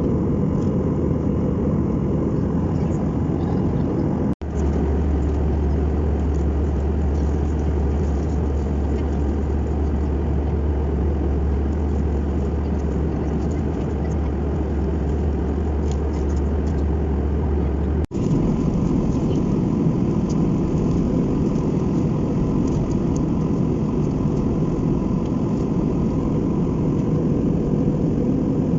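Steady cabin noise of an Airbus A319 airliner in flight: an even, deep rush of engine and airflow. The sound cuts out for an instant about 4 seconds in and again about 18 seconds in, and a heavier low hum runs between the two breaks.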